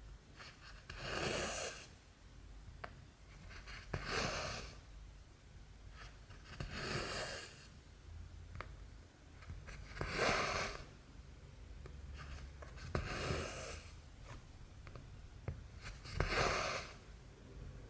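Cotton embroidery floss pulled through cross-stitch fabric, six soft swishing pulls about three seconds apart, with faint ticks of the needle piercing the cloth between them.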